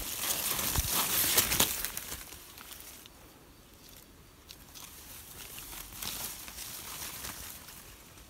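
Leaves and undergrowth rustling and crackling, loudest in the first two seconds, then softer, with another brief spell of rustling about six seconds in.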